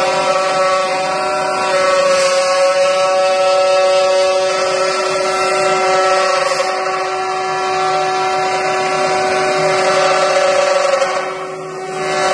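Multi-head 5-axis CNC wood carving machine's router spindles running at high speed and cutting into wood: a steady high-pitched whine over rough cutting noise. The sound dips briefly near the end, then comes back.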